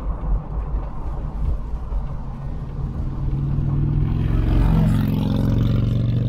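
Motorcycle engine closing in from behind to overtake, its note growing steadily louder from about three seconds in. Underneath runs steady wind and road noise inside a 1999 Jeep Wrangler TJ cabin with the windows down.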